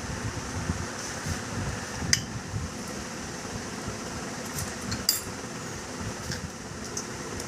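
Metal tools and engine parts clinking and tapping during motorcycle engine disassembly. There are a few sharp clinks, the loudest about two seconds in and again about five seconds in, over a steady background hum.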